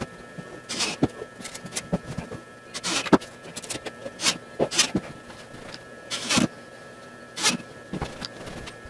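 Steel ball-bearing drawer slides being handled and shifted: irregular metallic clicks and knocks with a few short sliding rasps.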